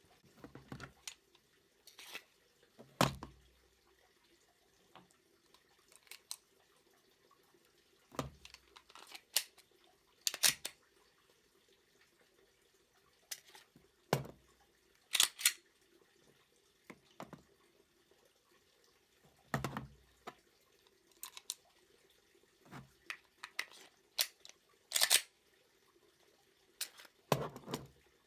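Glock pistol being handled while it is loaded and unloaded: a series of separate metallic clicks and clacks at irregular intervals, a few seconds apart, some with a dull knock.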